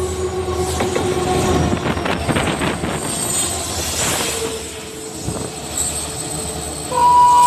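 Diesel locomotive running past at speed, its engine rumbling with a steady high whine over the clatter of wheels on the rails. Near the end a loud, steady two-note tone starts.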